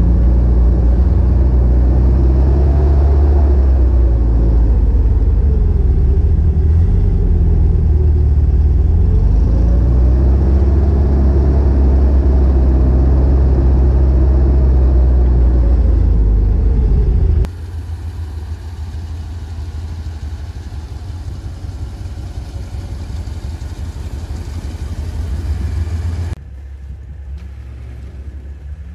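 A Pinzgauer 710M's air-cooled engine is heard loud and close as the truck is driven, a heavy rumble whose pitch rises and falls with the throttle. About two-thirds of the way through it cuts abruptly to a quieter, steady vehicle noise.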